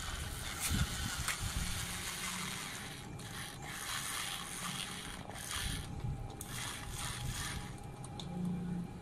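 Fire burning on the plastic front of a toy RC car: a continuous rushing hiss with a low rumble, broken by scattered crackles and pops.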